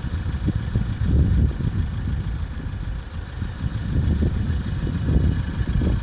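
Wind buffeting the phone's microphone: a low, irregular rumble that swells and drops in gusts.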